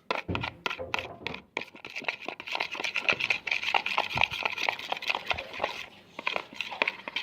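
A spoon stirring glue and black paint together into slime, with quick, continuous clicking and scraping strokes.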